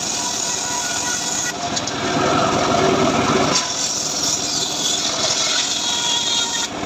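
Small-engine-driven sawmill saw (a homemade 'srekel' saw rig) running and sawing through a sengon log. Its tone and loudness shift several times as the cut loads and unloads the engine.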